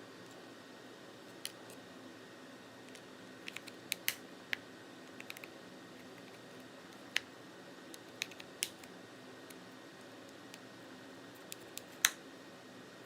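Spudger prying between the front and rear case of an iPod Classic to release the retaining clips: scattered sharp clicks and snaps at irregular intervals, the loudest near the end.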